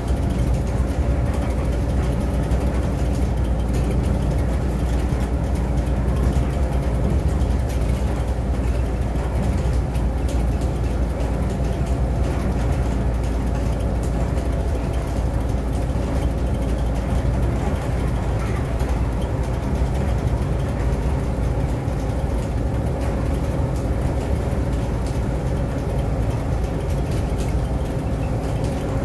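Inside a city bus at freeway cruising speed: the steady low rumble of the engine and road noise, with a faint steady whine.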